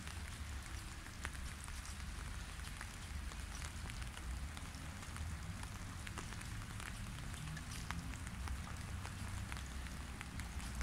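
Rain falling into a shallow puddle: a steady patter made of many small separate drop plinks, over a low rumble.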